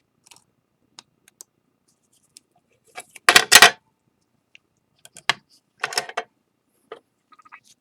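A metal palette knife scrapes and clinks against a glued ceramic bowl, taking excess lacquer-and-flour paste off the seams. The sound comes as scattered small clicks, with two loud scraping strokes about three and a half seconds in and a few more strokes around five to six seconds.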